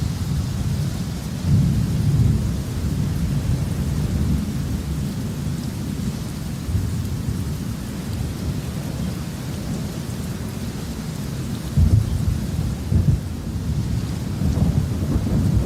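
Steady rainfall with thunder rumbling low and continuously, swelling to louder rolls about a second and a half in and again twice near the end.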